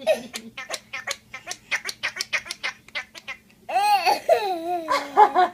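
Kid's-meal toy noise maker being shaken: a rapid run of clicks for about three seconds, then a long pitched tone that slides steadily downward.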